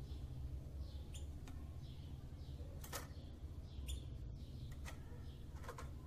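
Java sparrows chirping softly in a cage, short calls repeating about twice a second, with a few sharp clicks scattered through, over a low steady hum.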